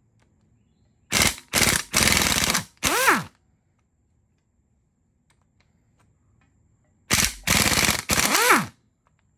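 Impact wrench hammering to break loose the head bolts on a small-block Chevy 350, in two runs of short bursts. Each run ends with the wrench's motor winding down in a falling whine.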